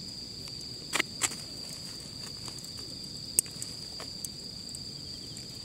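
Night insects singing a steady high-pitched trill, with a few sharp clicks about a second in and once more near the middle.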